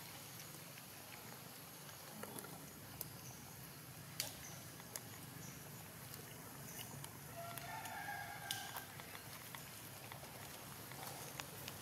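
Faint outdoor background with scattered small clicks and rustles as macaques pick at grass, and one drawn-out pitched animal call, a little over a second long, about seven and a half seconds in.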